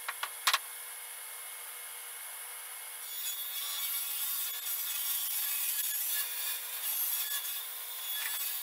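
A large sheet of plywood being pushed across a table saw: two sharp knocks near the start, then a rough, continuous rubbing hiss of the board moving over the table from about three seconds in.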